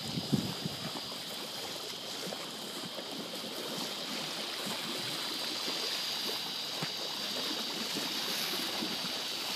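Small waves lapping and splashing against a concrete lakefront seawall, over a steady high-pitched drone. A few low thumps of wind on the microphone in the first second.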